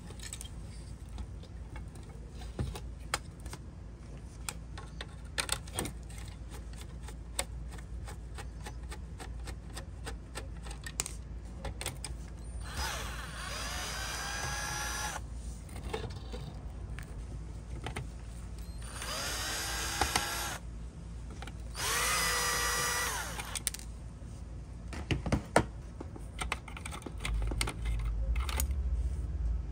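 Cordless power driver running in three short spells, each spinning up to a steady whine, as it backs screws out of a diecast model car's chassis. Light clicks and taps of small parts being handled come in between.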